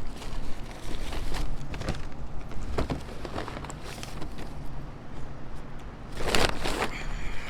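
Wind buffeting the microphone as a steady low rumble, with scattered rustling and handling noise and a louder rush of noise about six seconds in.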